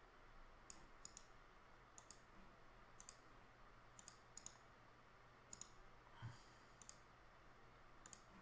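Faint computer mouse clicks, about ten sharp clicks spaced through, several in quick pairs, over a low steady hum. A soft low thump about six seconds in.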